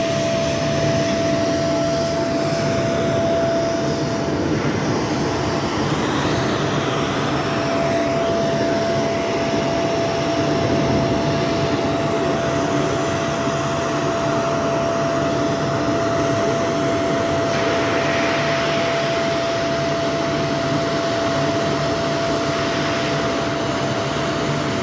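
Steady industrial machinery noise from a furnace plant, a dense even rush with a constant mid-pitched whine over it.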